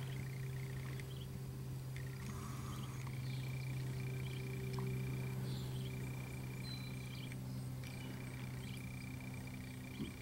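A steady low hum, with a thin high-pitched tone above it that drops out and comes back a few times, and one faint knock near the end.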